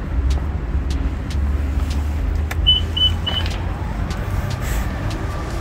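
Three short high beeps from a 2021 Infiniti QX50's power liftgate, the warning as the tailgate starts to close, then the hum of the liftgate's electric motor. A steady low rumble runs underneath.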